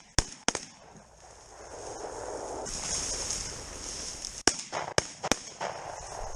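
Shotgun shots at a flying pheasant: two sharp reports right at the start, half a second apart, then three fainter, quicker cracks about four and a half to five and a half seconds in.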